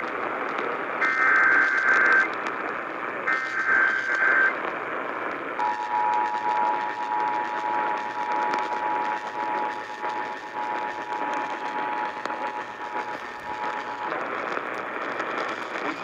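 Emergency Alert System activation heard through a Sangean CL-100 radio's speaker off AM: two short bursts of the shrill digital header tones, then the steady two-tone attention signal for about eight seconds, which cuts off near the end, all over a hiss of AM static.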